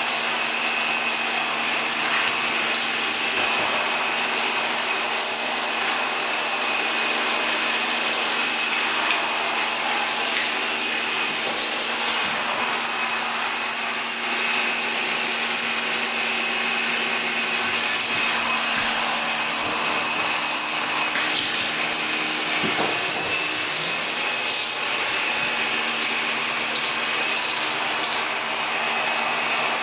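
Handheld shower head spraying water steadily: a continuous hiss.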